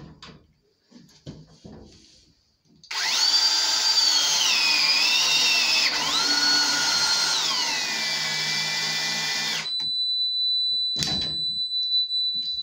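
Battery-powered Virax press tool crimping a fitting onto copper pipe. Its motor whine starts suddenly about three seconds in and its pitch sags and shifts as the jaws close under load for about seven seconds, then stops. A steady high tone follows, with a short knock near the end.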